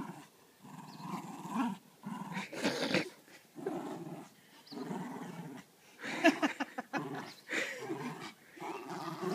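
Jack Russell terrier growling in repeated bursts while tugging on a raccoon-fur tug toy.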